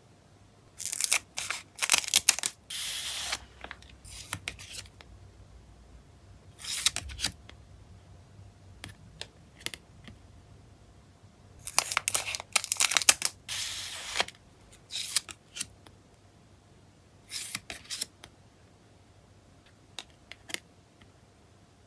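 Photocard packets being opened by hand: bursts of crisp tearing and rustling packaging in clusters a few seconds apart, with small clicks and taps between them.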